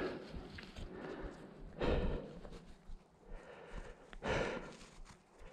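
Mountain biker breathing hard, with a loud exhale roughly every two and a half seconds and quieter rustling and trail noise in between.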